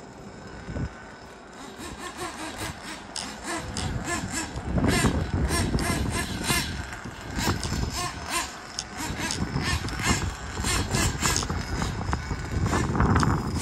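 Nitro engine of a Kyosho Inferno NEO ST 3.0 RC car running as it is driven. It gets louder about two seconds in, then rises and falls with the throttle.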